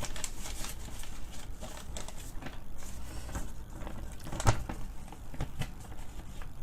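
Paper bill rustling and crinkling as it is handled and unfolded, with scattered small clicks and one sharper knock about four and a half seconds in.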